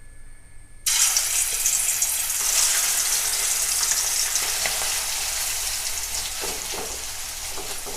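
Prawns coated in turmeric, chilli powder and salt sizzling as they are dropped into hot coconut oil in a cheenachatti (Kerala wok). The sizzle starts suddenly about a second in and slowly dies down as the oil settles around the prawns.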